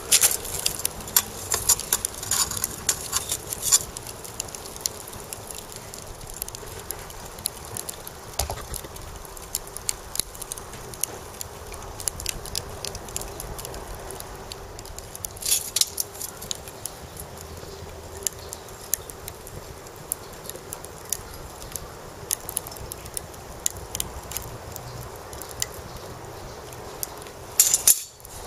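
Lump charcoal burning in a clay charcoal stove, crackling and popping with irregular sharp ticks, while a brush cutter muffler heats on it to burn off carbon. The pops come thickest in the first few seconds, again about halfway through, and in a short burst near the end.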